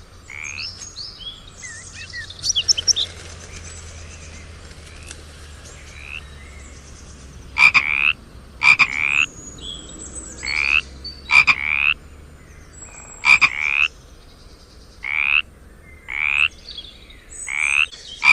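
Frogs croaking: short, loud croaks about half a second long, repeated at irregular intervals, sparse at first and then coming roughly once a second after about seven seconds. Fainter high-pitched chirps sound in the first few seconds.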